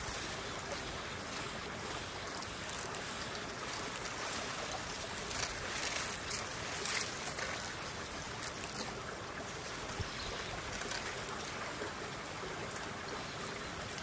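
Steady outdoor background hiss, with a few faint, short, high crackles in the middle.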